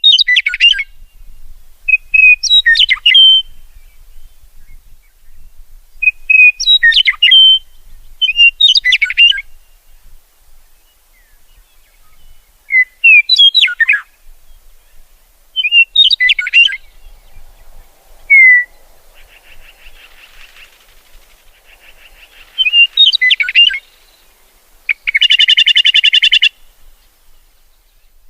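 Songbird singing short, loud phrases of chirps every few seconds, ending with a rapid buzzy trill near the end.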